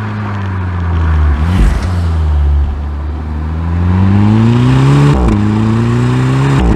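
2011 VW Golf 6 GTI's stock 2.0-litre turbocharged four-cylinder, revs dropping with a brief blip about one and a half seconds in, then climbing under acceleration. Two quick DSG upshifts, each with a short crack as the revs dip, come about five seconds in and near the end.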